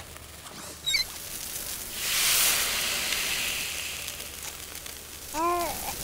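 A burst of hissing spray, like water from a shower, swells about two seconds in and fades away; a faint chirp sounds about a second in, and a short rising-then-falling voice-like sound comes near the end.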